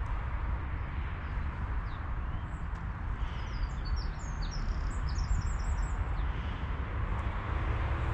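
Steady low outdoor rumble, with a small songbird singing a quick run of high chirps in the middle.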